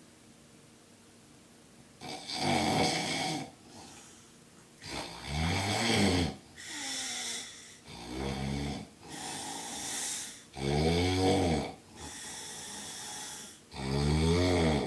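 A sleeping man snoring very loudly. After about two seconds of quiet come five loud snores, roughly every three seconds, each followed by a quieter breath out.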